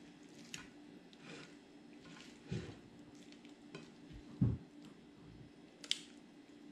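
Metal tongs and a fork pulling apart cooked roast beef on a ceramic plate: soft scrapes and light clicks of utensils against the plate, with two low dull thumps in the middle and a sharper metal click near the end.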